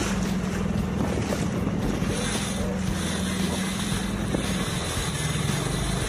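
Outboard motor of a small fishing skiff running at a steady speed, with wind buffeting the microphone.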